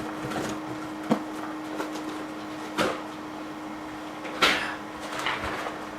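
Handling noise from unpacking a shipping box: three sharp knocks about a second, three seconds and four and a half seconds in, with faint rustling between them, as items are moved and set down.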